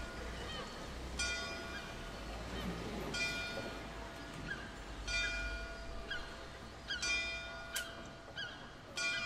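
Music: a single plucked, ringing note struck about every two seconds and fading away each time, with faint bird calls and a low rumble underneath.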